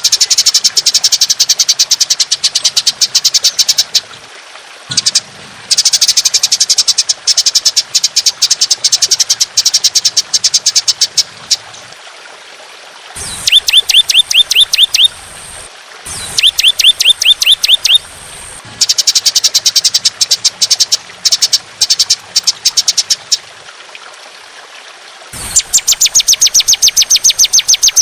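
Songbird 'masteran' tutor recording: a bird delivers long, harsh bursts of very rapid repeated notes, called 'shots', each burst lasting a few seconds with short pauses between. Twice, about midway, the bursts change to clearer, downslurred notes.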